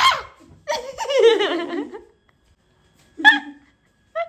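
A girl laughing in two bursts: a longer, wavering one in the first two seconds, then about a second of quiet and a short sharp laugh about three seconds in.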